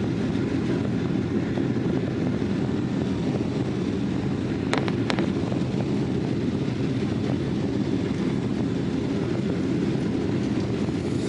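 Steady low rumble of the engines and airframe heard from inside the cabin of a Boeing 777-200ER airliner, with two faint clicks about five seconds in.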